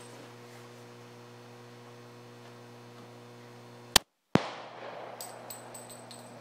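.40 S&W pistol gunfire from a Glock 22 Gen 4 about four seconds in: a sharp crack, the sound cutting out for a moment, a second crack, then a fading echo with a few light ticks. A steady low hum runs underneath.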